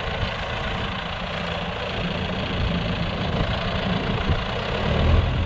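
John Deere 5080R tractor's diesel engine running steadily, its low rumble growing a little louder near the end.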